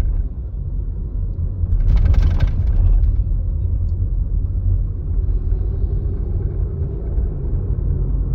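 Low, steady rumble of a 2022 Volkswagen Polo 1.4 with 7-speed DSG being driven, heard from inside the cabin. A brief rasping noise about two seconds in lasts roughly a second.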